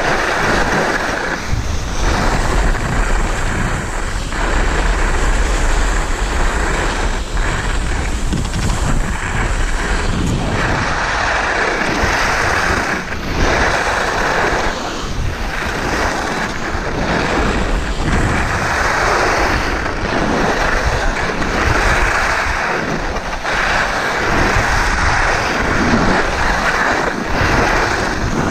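Wind rushing over an action camera's microphone while skiing downhill, mixed with skis scraping over packed snow. The noise swells and dips every second or two.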